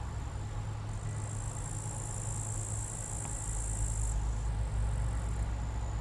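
New Holland CX860 combine harvester running steadily while harvesting barley: a low, even drone, with a high hiss that grows louder about a second in and drops back about four seconds in.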